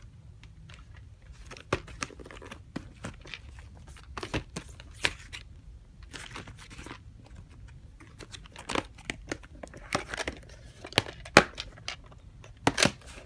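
Plastic clamshell VHS case being handled and opened, with irregular clicks, taps and rustles as the cassette is brought out. The clicks grow louder over the last few seconds.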